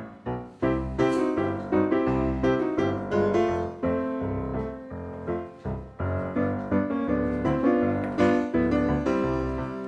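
Background piano music: a run of struck notes and chords, each note sounding sharply and then fading.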